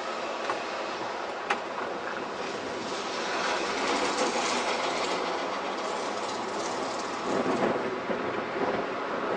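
Blackpool electric tram running along its track, a steady rolling noise that grows louder about three seconds in, with one sharp click about a second and a half in.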